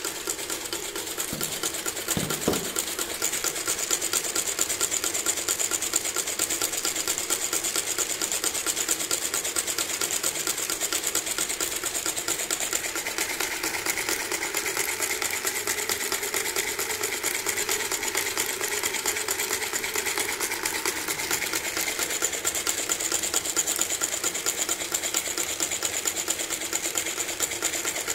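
3D-printed four-cylinder engine model in PLA and ABS plastic turning over, its moving parts making a rapid, steady, even clatter. There are a couple of brief low thumps about two seconds in.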